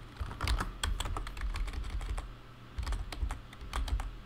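Computer keyboard typing: irregular runs of keystroke clicks, with a short pause about halfway through.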